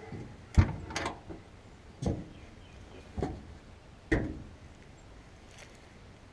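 Knocks and clunks from the Willys CJ-2A's passenger-side storage box and seat being shut and secured: a sharp clunk about half a second in, then four lighter knocks roughly a second apart.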